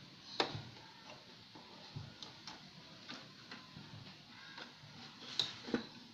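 Light clicks and knocks of hands handling a CRT television's circuit board and wiring, irregularly spaced, with a sharper click about half a second in and two more close together near the end.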